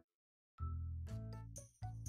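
Silence, then background music comes in about half a second in: a low bass under a run of short, bright melody notes.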